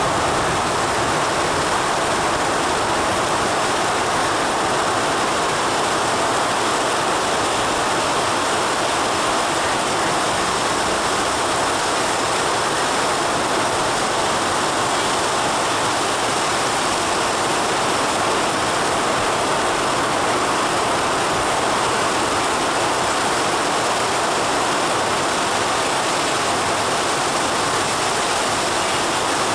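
Heavy rain pouring down steadily: a dense, even hiss with no breaks.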